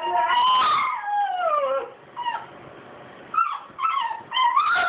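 French bulldogs whining and howling in long cries that slide up and down in pitch: a drawn-out falling cry about a second in, a few short yips later, and another rising-and-falling cry near the end. This is separation whining from dogs shut behind a gate after their owner has left.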